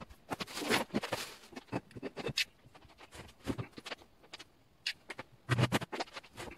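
Irregular handling noises of materials being worked by hand: scratches, scrapes and light knocks. There is a longer scraping rush about half a second in, and a quick cluster of knocks near the end.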